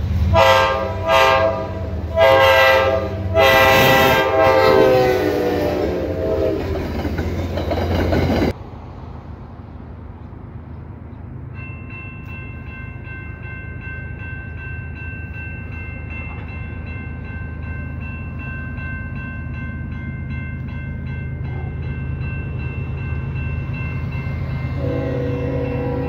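A train horn sounds a series of loud blasts, the last long one dropping in pitch as the train passes, and cuts off abruptly about eight seconds in. A railroad crossing bell then rings steadily with evenly repeated strikes as the crossing signals activate, and near the end another train horn starts up as the next train approaches.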